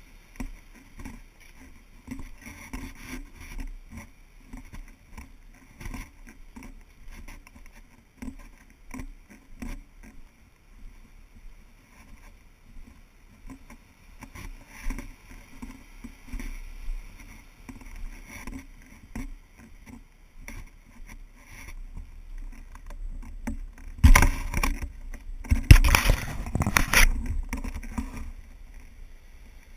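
Footsteps scuffing along a dirt trail, with the rubbing and knocking of a hand-carried GoPro in its case. About 24 seconds in come several loud knocks and scrapes as the camera is handled and turned around.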